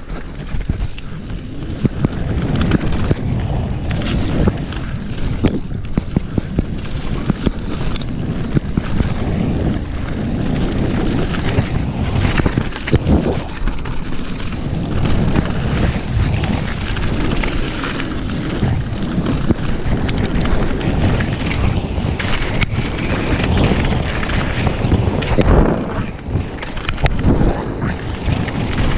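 Wind buffeting a GoPro's microphone during a fast downhill mountain-bike run, with the bike's tyres on a rocky trail and frequent sharp knocks and clatters as the bike goes over bumps.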